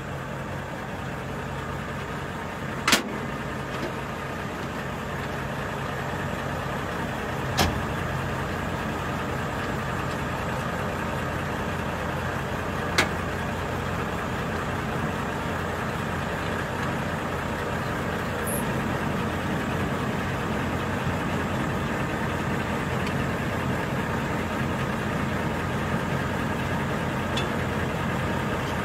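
Heavy diesel engine idling steadily up close, with three sharp clicks a few seconds apart.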